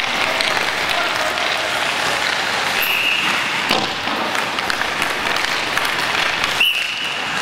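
Hockey skate blades scraping and carving on rink ice, a steady hiss, with a sharp knock a little before halfway through, typical of stick on puck, and a couple of brief high squeaks.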